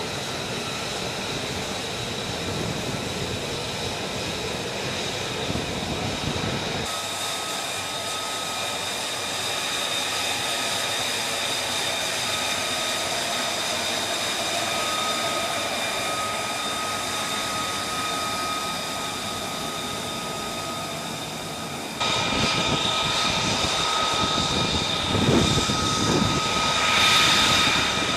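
F-35A Lightning II's single Pratt & Whitney F135 jet engine running with a steady high whine over a rushing noise. The sound changes abruptly about seven seconds in and again about twenty-two seconds in, growing louder after the second change and swelling near the end.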